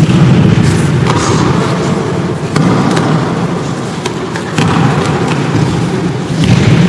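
Many aikido practitioners taking breakfalls on tatami mats in a large hall: a rolling run of thuds and slaps with a dense rumble under them.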